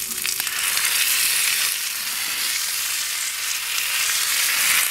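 Hamburg steak and vegetables sizzling steadily in a hot cast-iron skillet as demi-glace sauce is squeezed in from a pouch. The sizzle grows louder about half a second in.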